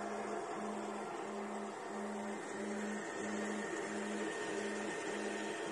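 SUNLU S9 Plus 3D printer printing: its stepper motors hum in a regular back-and-forth rhythm, about three strokes every two seconds, over a steady whir.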